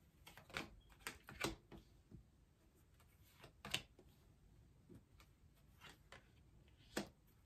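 Tarot cards being shuffled and dealt onto a tabletop: a few faint clicks and taps of card on card and card on table, a handful in the first second and a half, the sharpest about three and a half seconds in, another near the end.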